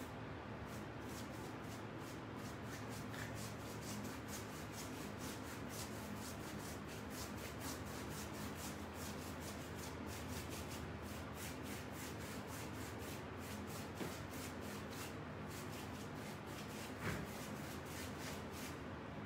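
Paintbrush scrubbing and dabbing paint onto a textured, crumpled-paper-towel-and-Mod-Podge surface: quick repeated scratchy strokes, a few a second, with a faint steady hum behind.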